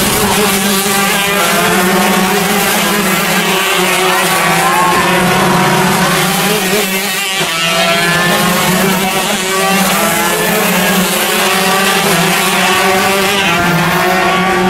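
Several two-stroke shifter kart engines racing past, their pitch repeatedly climbing and dropping as they rev up and back off through the corners.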